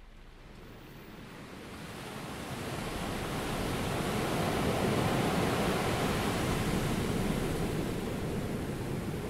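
Ocean surf ambience: a steady rushing noise of waves that fades in over the first four seconds and then holds.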